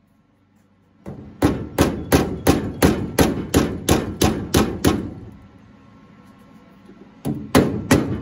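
Body hammer striking a welded sheet-steel patch panel: a steady run of sharp metallic taps, about three a second. The taps start about a second in, stop for about two seconds past the middle, and start again near the end.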